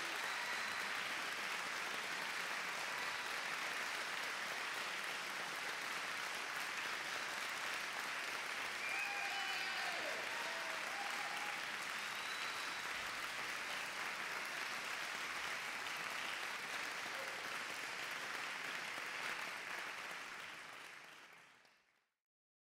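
Audience applauding steadily, with a voice or two calling out briefly about nine seconds in; the applause fades out near the end.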